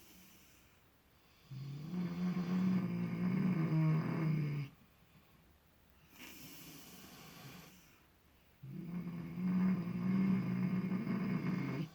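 Miniature potbellied pig snoring in deep sleep: two long, low, buzzing snores of about three seconds each, with softer breaths between them.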